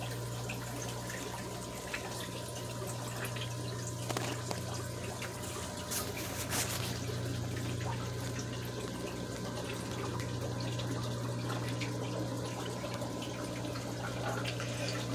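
Aquarium fish-room background: water trickling and splashing from tank filtration over a steady low hum, with a few faint clicks.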